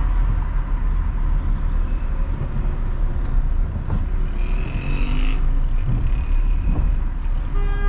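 Steady low rumble of a car driving through city traffic, with a brief click about four seconds in. A car horn gives a short toot near the end.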